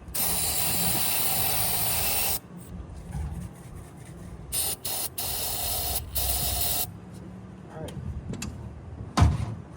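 Aerosol starting fluid sprayed in hissing bursts: one long burst of about two seconds, then two short ones, over a low rumble. A sharp low thump comes near the end.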